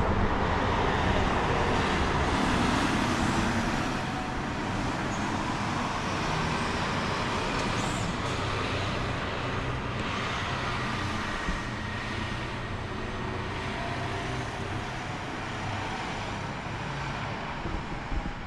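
Steady motor vehicle and road traffic noise.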